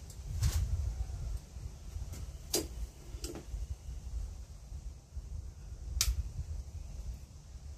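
Bonsai wire and hand tools clicking as a tree is wired down into its pot: four sharp clicks, a second or more apart, over a low rumble.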